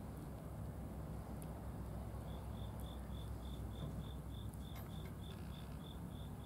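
A cricket chirping in short, even pulses at one high pitch, about three a second, starting up about two seconds in, over a low steady background rumble.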